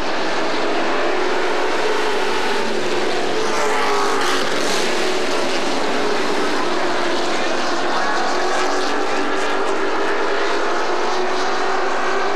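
Race pickup trucks' engines running at speed around an asphalt oval, a continuous drone that rises and falls in pitch as the trucks pass. It swells louder about four seconds in.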